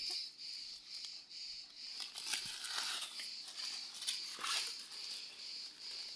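A steady, shrill insect chorus of cicadas or crickets, pulsing rapidly, with intermittent crackling rustles and snaps of dry corn leaves and husks as ears are picked.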